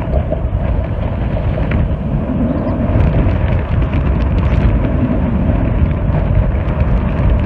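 Near-gale wind buffeting the microphone aboard a sailing boat: a loud, steady rumble with a rushing hiss and a few faint ticks.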